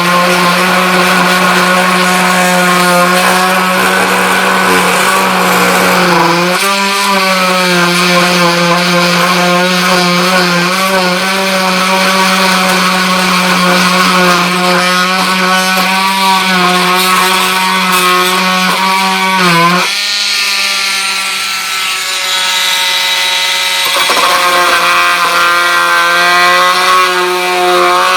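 Milwaukee C12 MT 12-volt cordless oscillating multi-tool with a wood plunge-cut blade, cutting through thin plastic: a loud, steady buzzing hum. Its pitch wavers as the blade loads up and frees, sagging briefly about a quarter of the way in and again about two-thirds through, then running lighter for a few seconds before picking up again.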